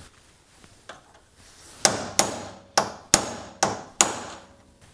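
Hammer driving a cold chisel against a seized screw head: six sharp metallic blows, roughly half a second apart, starting about two seconds in, each with a short ring.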